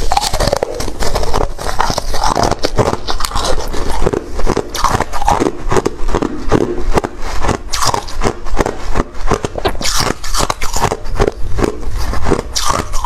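A dense, fast run of crunching and scraping clicks, many each second, running without a break.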